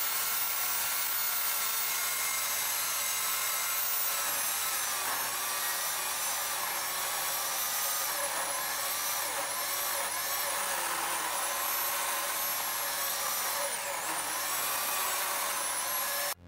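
Electric chainsaw mounted in a Granberg Alaskan chainsaw mill, ripping lengthwise through a cherry log: a steady high motor whine with chain noise. Its pitch dips and recovers repeatedly in the second half as the motor works through the wood. The sound cuts off suddenly at the very end.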